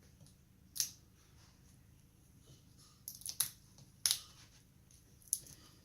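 Light, irregular plastic clicks and taps, about five of them, from hands working the laptop screen's display cable connector and the panel it plugs into.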